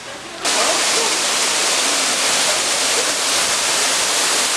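Small waterfall pouring over rocks into a pool: a steady rush of splashing water that starts abruptly about half a second in.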